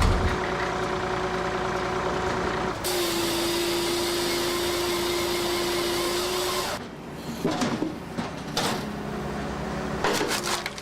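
Heavy wood-processing machinery running: a steady mechanical hum with a held whine, then several seconds of irregular knocks and clatter as wood is worked.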